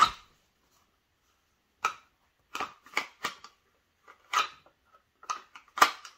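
Sharp clicks and knocks of a polymer pistol being handled in and out of its holster: a loud click at the start, then about seven more scattered through the rest.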